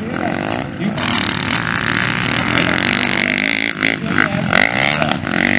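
Motocross dirt bike engines revving hard, the pitch climbing and dropping as the riders work the throttle and shift, with a sharp dip and rise about four and a half seconds in.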